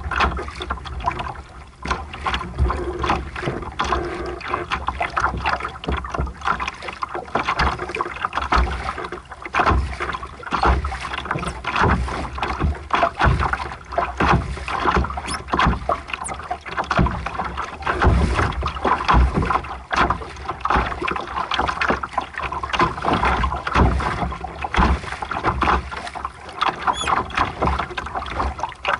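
Water rushing and splashing along a sailboat's hull as it sails, in constant uneven surges, with wind buffeting the microphone as a low rumble.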